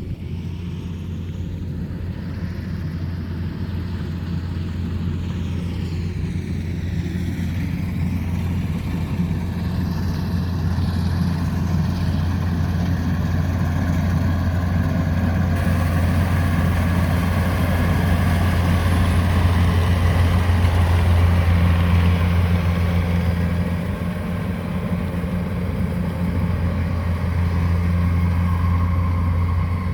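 Rice harvester running as it works, a steady engine drone that grows louder over the first twenty seconds or so, dips briefly and rises again near the end.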